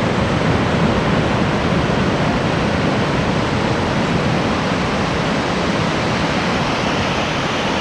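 Steady wash of surf breaking on a beach.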